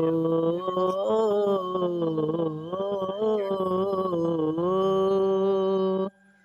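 Male voice singing a long drawn-out note of a Nimadi bhajan, the pitch sliding and wavering, then stopping abruptly about six seconds in.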